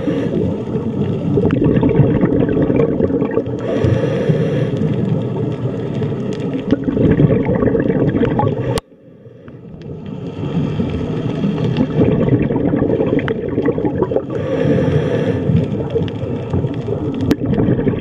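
Underwater ambience: a dense, low rumbling water noise with two brief bursts of bubbling hiss. It cuts out abruptly about halfway through, then fades back in.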